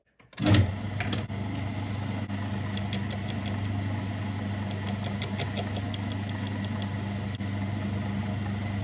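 Electric motor of a small lathe-mounted cutting setup switched on about half a second in, then running with a steady hum, with two short runs of light rapid ticking along the way.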